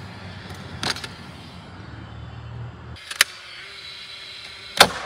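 Cordless nail gun firing nails into pallet boards: two sharp shots, one a little past three seconds in and a louder one near the end, with a smaller knock about a second in. A steady low hum runs under the first three seconds.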